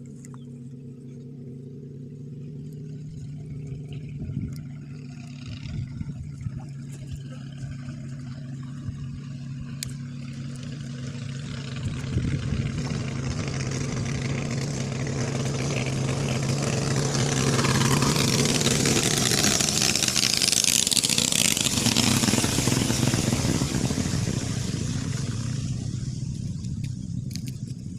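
An engine approaching steadily, humming at an even pitch and growing louder, passes close with a rush of noise about two-thirds of the way in, then fades away near the end.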